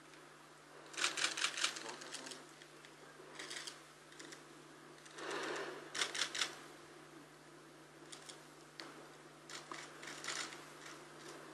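Camera shutters firing in rapid bursts, four rounds a few seconds apart, with a soft rustle about halfway through.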